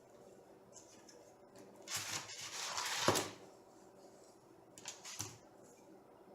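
Handling noises from parts being worked on: a scraping rustle lasting about a second that ends in a sharp click, then two short knocks about five seconds in.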